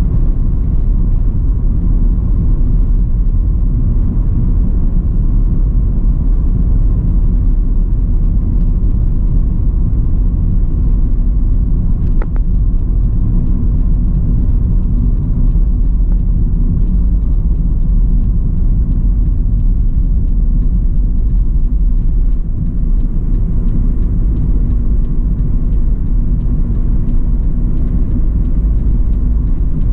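Steady low rumble of a car being driven, road and engine noise heard from inside the car.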